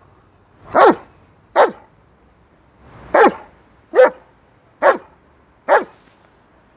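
German shepherd barking six short single barks, a second or so apart, on a silent fingertip hand signal from its trainer.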